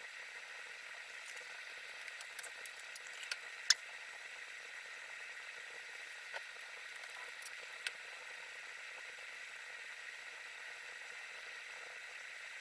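Motor oil pouring from a quart bottle through a plastic funnel into a motorcycle engine's oil filler: a faint, steady liquid hiss. A few small clicks and taps sound over it, the sharpest a little under four seconds in.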